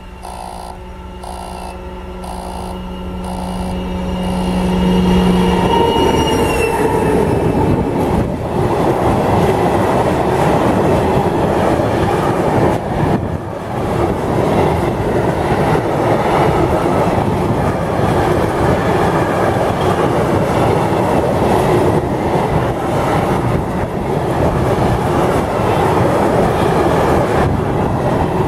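A level-crossing warning bell rings in even pulses as a pair of Soviet-built diesel locomotives ('Ludmiła' and 'Tamara') approaches. Their engine tones drop in pitch as they pass about six seconds in. A long train of tank wagons follows, its wheels rumbling and clattering loudly over the rails.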